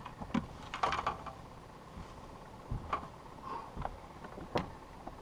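Scattered knocks and clicks of someone moving about and handling gear on a fishing boat's deck, with a cluster about a second in and a sharp knock near the end.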